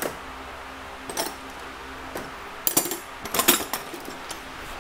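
Hand tools and small metal parts clinking and clattering on a steel workbench: a few short sharp knocks, the loudest cluster about three and a half seconds in.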